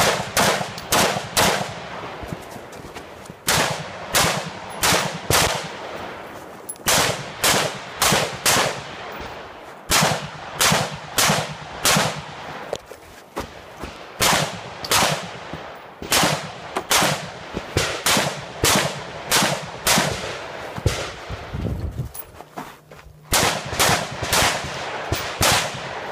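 AR-style semi-automatic rifle fired in quick strings of several shots, about two to three a second, with brief pauses between strings, each shot ringing out with a short echo.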